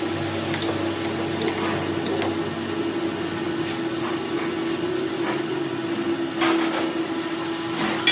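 A workshop machine's electric motor running with a steady hum, with scattered light taps and a sharper knock about six and a half seconds in.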